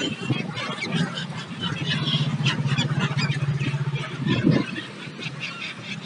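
A flock of gulls calling, many short high calls overlapping one another. Under them, a steady low drone runs for about three seconds from about a second in.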